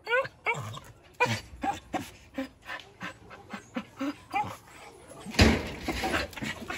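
Small dog whining and yipping in short, excited, rising and falling calls, with panting between them, as it begs to be fed. A louder, noisier burst comes about five seconds in.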